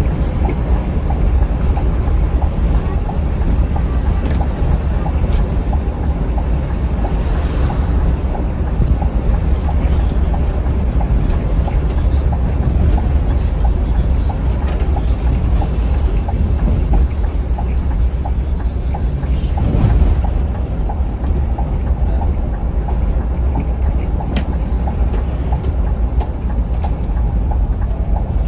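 Scania K360iB coach driving at speed: a steady low rumble of engine and road noise.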